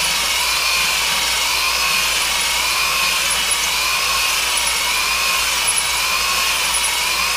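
Electric drill spinning a cylinder hone with abrasive stones in a cast-iron Farmall Super M block bore: a steady drill whine that wavers slightly in pitch, over the gritty scraping of the stones on the bore wall. The bore is being honed out to size for a press fit of a new cylinder sleeve.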